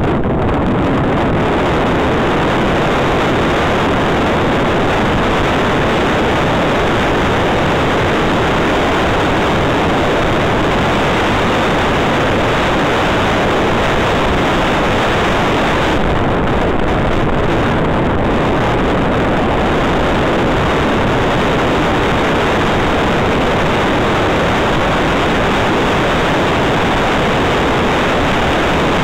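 Steady, loud rush of wind on the microphone of a camera riding on a mountain bike descending a gravel road, mixed with the tyres rolling over the loose surface.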